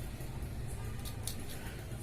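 Steady low hum, with a few brief, faint scratching sounds about a second in.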